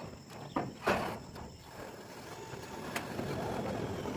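Corrugated steel roofing sheets being handled on the roof: a few knocks in the first second, a sharp tick about three seconds in, and a scraping rustle of metal sheet that builds toward the end.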